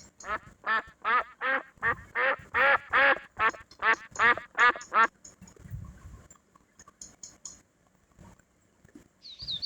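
Duck quacking in a rapid run of about fourteen quacks, roughly three a second, lasting about five seconds. Near the end a high, quickly repeating chirping starts.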